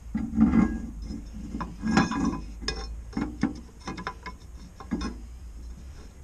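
Irregular clicks, knocks and clinks as a spare-wheel lock cover is fitted by hand onto a steel wheel's centre, over the mounting bolts.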